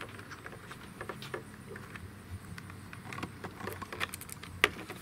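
Small plastic clicks and rattles as a towing mirror's glass and its plastic backing plate are handled while the heated-mirror wire connector is plugged in, with one sharper click a little after four and a half seconds.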